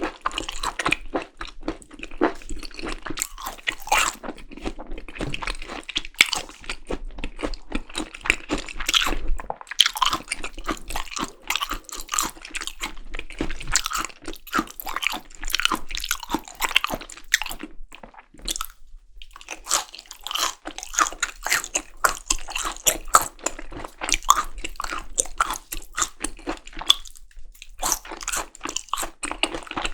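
Close-miked mouth sounds of a person chewing and biting seasoned raw beef tartare (yukhoe): dense, irregular wet clicks, with three short pauses.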